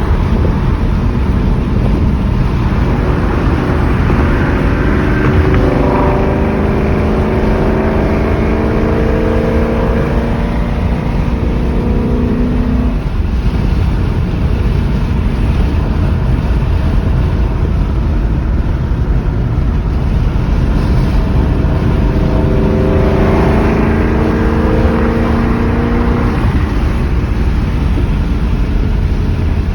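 Ford Mustang GT's V8 engine and exhaust at highway speed over a constant low road rumble. It is pushed twice, about four seconds in and again about twenty-two seconds in, with the engine note climbing each time before it eases off.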